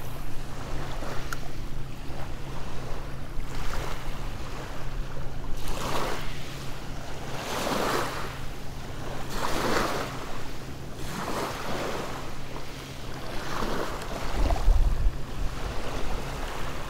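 Small waves lapping and washing up on a shelly gravel beach, each wash swelling and fading about every couple of seconds. A gust of wind buffets the microphone near the end.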